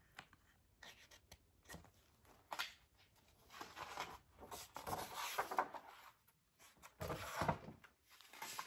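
A picture book's paper pages and cover rustling and scraping in irregular bursts as it is closed and flipped over by hand.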